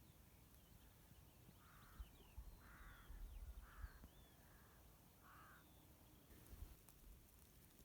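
A crow cawing faintly, five short caws over about three and a half seconds, with faint chirps of small birds higher up.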